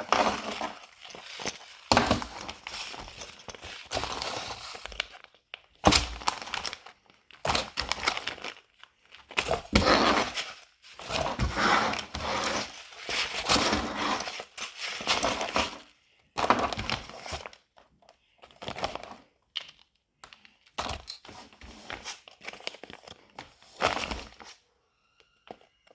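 Packaged squishies and unboxing items being handled: irregular crinkling and rustling of wrappers in bursts of a second or two, with a few sharp knocks as things are set down.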